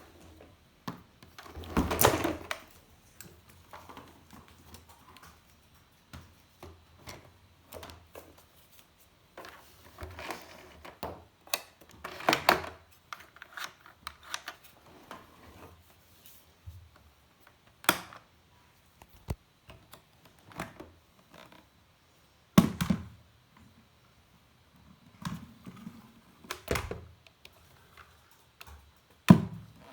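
Objects being handled indoors: scattered knocks and clicks with short bursts of rustling at irregular intervals, the loudest knocks about 2, 12, 23 and 27 seconds in. No motor is running.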